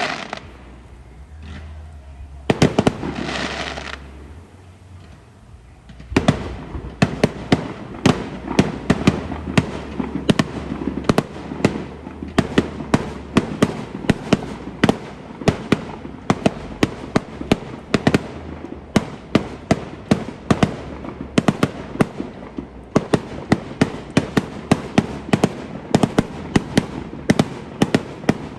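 Fireworks going off. After a few seconds of scattered bangs and hissing, a rapid volley of sharp bangs and crackles, several a second, starts about six seconds in and keeps going.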